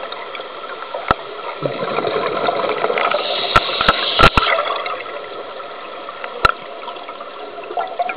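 Muffled rushing water heard by a camera held underwater, swelling for a couple of seconds in the middle, with several sharp clicks or knocks, most of them clustered about four seconds in.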